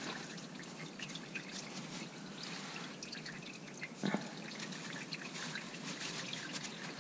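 Used engine oil trickling and dripping from the drained oil pan of a 6.0-litre Vortec V8 into a catch pan, a faint patter of small drips. A single brief knock about four seconds in.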